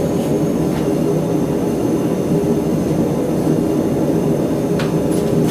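Blacksmith's forge running with a steady, low rushing roar from its fire and air supply, with one faint metallic click near the end.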